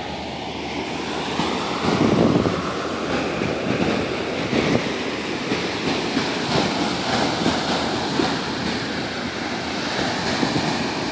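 Ocean surf breaking and washing up the beach, swelling about two seconds in, with wind buffeting the microphone.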